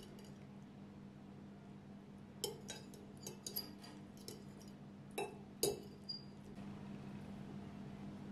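A metal fork clinking and scraping against a ceramic plate as it cuts into and scoops baked zucchini: a string of about nine light clinks in a few seconds, the loudest about five and a half seconds in.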